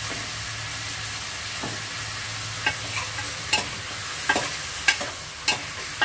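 Chicken pieces frying in their own rendered fat with freshly added ginger in a metal pot, a steady sizzle. From about two and a half seconds in, a spoon stirring the pot knocks and scrapes against its side about six times.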